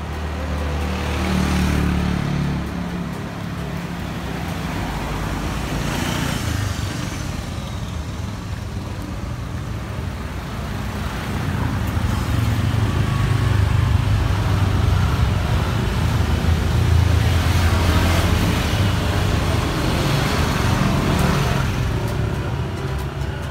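Street traffic: motor scooters and cars passing close by, their engines swelling and fading several times, with a louder stretch in the second half as a group of scooters goes past.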